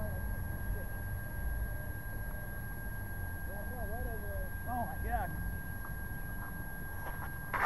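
Steady high electronic whine over a low wind rumble, picked up by a small onboard camera's microphone lying still in the weeds. Faint distant calls, rising and falling in pitch, come through briefly about halfway.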